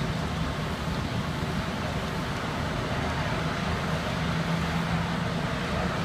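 Rice husk powder biomass burner firing at full flame: a steady roar of burning fuel and air blower with a low hum underneath.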